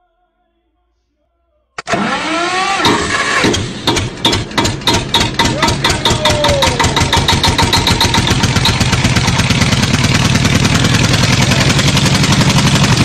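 An engine starting: it comes in suddenly about two seconds in, catches, and its firing pulses speed up into a steady fast beat.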